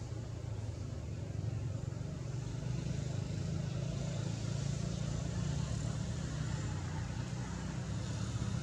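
Steady low motor drone with a faint hiss above it, like a distant engine running.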